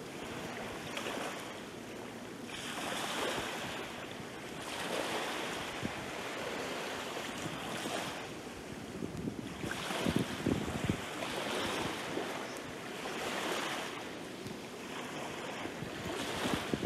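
Small waves breaking and washing up a sandy shore, the wash swelling and fading every two to three seconds, with a few crackles of foam around ten seconds in.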